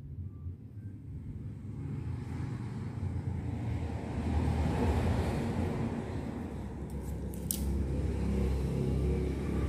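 Low rumbling noise that swells to a peak about halfway through and then eases off, with a short run of sharp clicks about seven seconds in.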